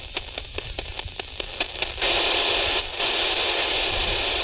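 Radio receiver static: irregular crackling clicks, then about two seconds in a loud, steady hiss of static takes over.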